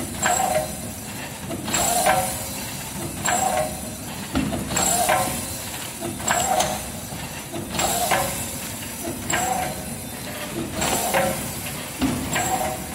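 Automatic horizontal pouch packaging machine running its cycle. About every second and a half its mechanisms clack and its pneumatic cylinders release air with a hiss, over a steady mechanical running noise.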